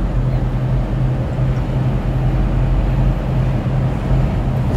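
Truck cab interior noise at highway speed: engine and road drone with a steady low hum that pulses in a regular beat.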